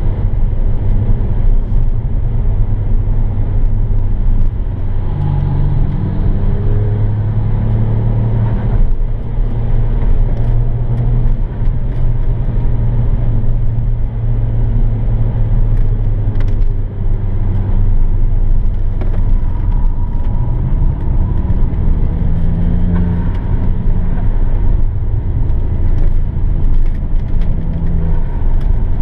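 Car engine running hard at track speed with steady road noise, heard from inside the cabin. The engine note rises and falls several times as the car accelerates and slows.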